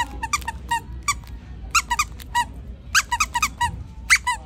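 Squeaker inside a plush bunny dog toy squeezed by hand over and over, giving short high squeaks in quick runs of two to four with brief pauses between.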